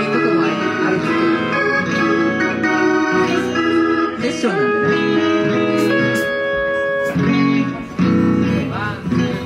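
Live rock band playing loudly, electric guitars over bass and drums, with the loudness falling away near the end.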